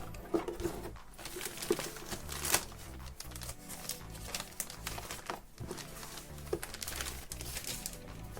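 Plastic packaging crinkling and rustling as it is handled, with irregular sharp crackles and clicks.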